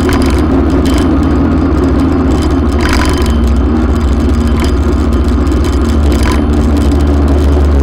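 Motorcycle engine running steadily at low speed as the bike filters between lanes of queuing cars, with a few brief rushes of noise about three, four and a half and six seconds in.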